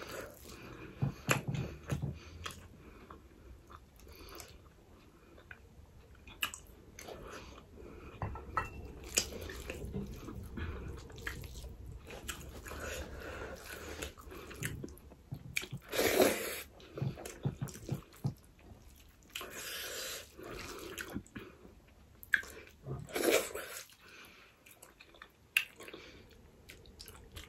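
Close-miked chewing and wet lip smacking from a person eating rice and curry by hand, with small squishy clicks as fingers mix rice on the plate. Two louder smacks stand out, a little past the middle and again later.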